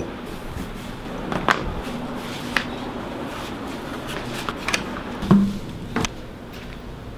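Flip-flops slapping on a tiled floor and stairs as someone walks, with scattered knocks and handling noise; the loudest knock, about five seconds in, carries a brief low tone.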